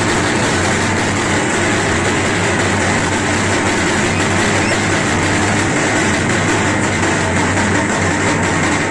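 Loud, steady din of a dense festival crowd pressing together, an unbroken wash of many voices and movement with no single sound standing out.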